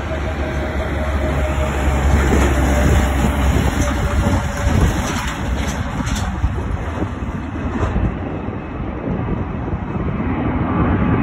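Narrow-body twin-jet airliner's engines at takeoff thrust, a loud steady roar as it lifts off and climbs away. The deep rumble eases after about five seconds.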